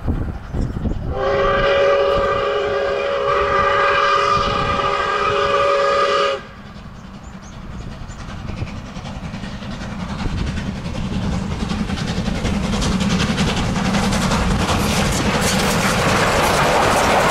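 Steam whistle of South Australian Railways steam locomotive 621, a chord of several tones, sounds for about five seconds and cuts off sharply. The approaching train's rumble then grows steadily louder until the locomotive passes close near the end with rapid clicking of wheels over the rail joints.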